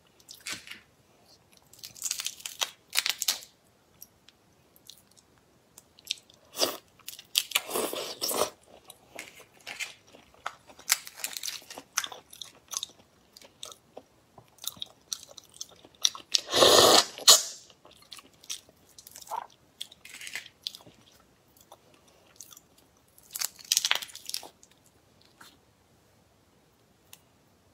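Close-miked crackling and snapping of prawn shells being pulled apart and peeled by hand, with chewing, in irregular bursts separated by quiet gaps. One longer, louder crunch comes a little past the middle.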